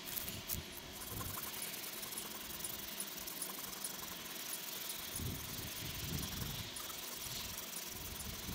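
Faint, steady rasp of a saw cutting through the hard wood of a bay tree trunk near its base.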